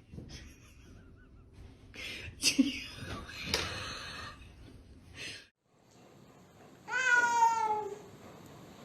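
A cat gives one long meow, about a second long and falling slightly in pitch, near the end. Before it come a few short knocks and brief rustling noises.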